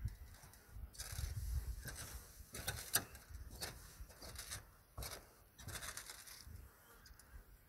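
Footsteps and scuffs on roofing: irregular knocks and scrapes, several a second at times, with a low rumble underneath.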